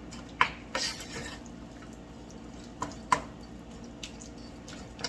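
Pan of thick homemade refried beans, a handful of short wet pops and clicks over a low steady background.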